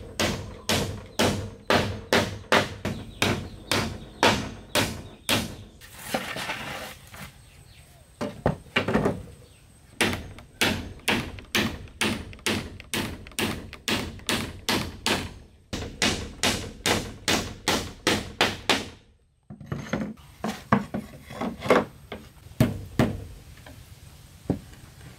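Hatchet used as a hammer, striking the wooden boards and posts of a shelter frame in steady runs of about three blows a second, with short pauses between runs. Near the end the blows turn lighter and sparser.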